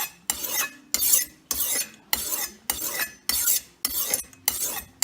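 Steel knife blade scraped across the coarser side of a two-sided sharpening stone, about nine quick rasping strokes in a steady rhythm of under two a second.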